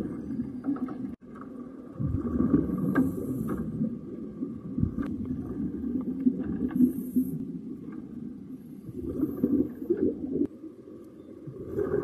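Scuba diver breathing through a regulator underwater: a short hiss on each inhale comes every three to four seconds, and between them exhaled bubbles give a low, muffled rumbling.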